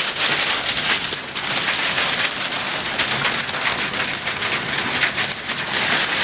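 Heavy rain and hail drumming on a van's roof and windshield, heard from inside the cabin: a loud, dense, unbroken patter of countless small impacts.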